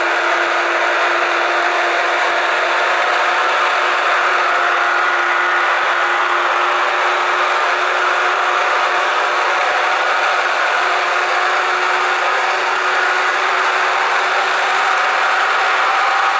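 Sound decoder of an HO-scale EF66 electric locomotive model playing the locomotive's running sound through its speaker: a steady electric hum of blowers and motors, with several held tones that drift slightly in pitch.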